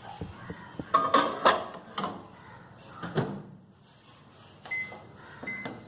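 Microwave oven being loaded and set: knocks and clatter as the bowl goes in and the door is shut, then two short keypad beeps near the end as the cook time is entered.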